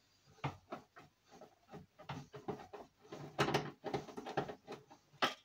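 Irregular clicks, knocks and light rattles of hands working on the graphics card inside a desktop PC case, with a sharp click near the end.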